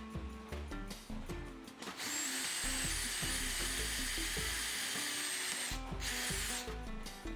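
Small power tool running with a steady high-pitched whine for about four seconds, stopping, then running again briefly, over background music.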